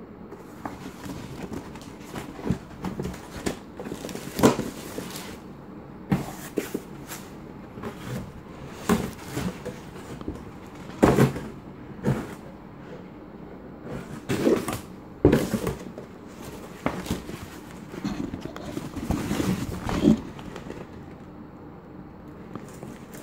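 Hands handling a burlap tote bag inside a cardboard box: coarse fabric rustling and the bag and box being shifted, with a scattering of louder bumps and knocks every few seconds.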